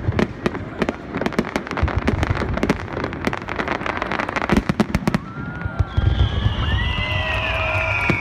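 Fireworks display going off: a rapid, irregular run of sharp bangs and crackles from bursting shells. About six seconds in, a long falling whistle and shorter gliding tones sound over the bangs.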